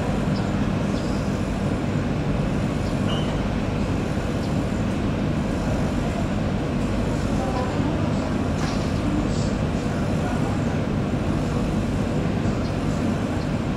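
Boat engine running steadily: a constant low drone with a faint hiss over it.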